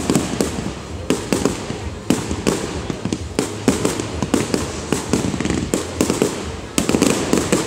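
Fireworks display: an irregular barrage of bangs and crackles, several a second, growing denser near the end.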